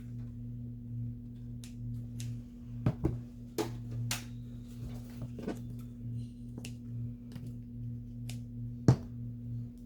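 Scattered light taps and clicks of paper craft materials being handled and set down on a work table, with a sharper knock about nine seconds in, over a steady low electrical hum.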